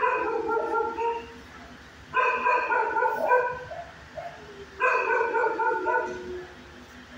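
Dog barking and yipping in three bouts of about a second each, with quieter gaps between.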